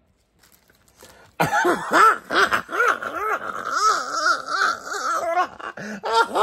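A man laughing: a run of rising-and-falling cries, about three a second, starting about a second and a half in after near silence.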